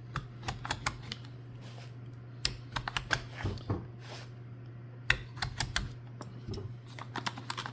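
Hands opening up and handling a consumer firework cake: a run of irregular light clicks and taps with a few short rustles.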